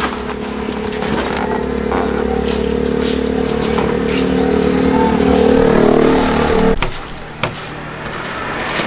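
A motor runs steadily, getting a little louder, then stops abruptly about seven seconds in, followed by a couple of sharp knocks.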